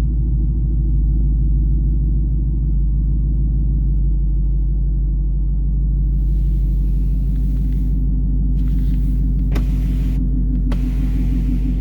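2019 Ford Mustang GT's 5.0-litre V8 idling steadily with a low exhaust rumble, running normally without its intermittent belt-like squeak. From about six seconds in, a hiss comes and goes over it, with two sharp clicks near the end.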